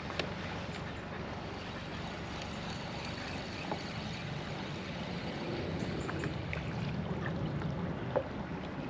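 Steady water and wind noise around a fishing kayak on a river, with a few light clicks and knocks.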